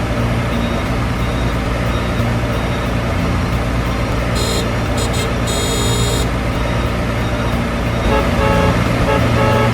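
Toy construction vehicle running with a steady motor drone, with a brief high-pitched tooting tone, in two short pieces and then a longer one, about halfway through.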